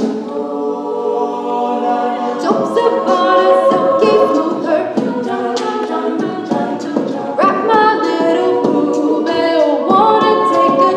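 Mixed a cappella vocal group singing in close harmony, several sustained voice parts layered under a lead, with sharp percussive hits keeping a steady beat.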